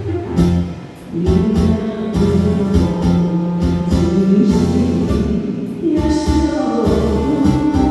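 Music: a song with a voice singing long held notes over a plucked guitar backing.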